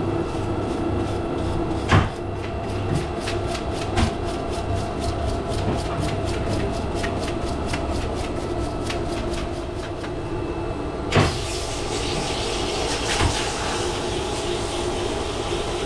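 Steady machine hum with rapid, even ticking until about eleven seconds in, when a click is followed by a steady hiss: a Supco Port-A-Blaster portable pressure washer spraying water onto the mini split's indoor coil.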